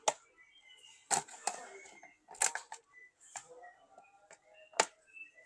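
Laptop bottom cover being fitted back on by hand: about six sharp clicks and knocks as it is slid in and its clips are pressed home.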